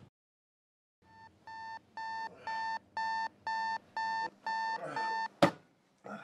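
Alarm clock beeping, about two short beeps a second, growing louder over the first few beeps, then a single sharp knock just after five seconds as the beeping stops.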